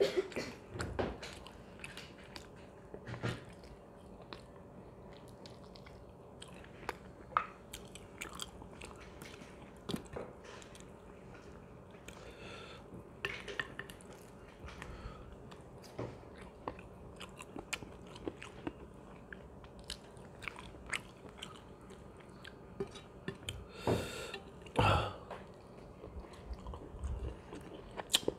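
Close-miked chewing and mouth clicks of a person eating chicken biryani, with a few louder mouth sounds near the end.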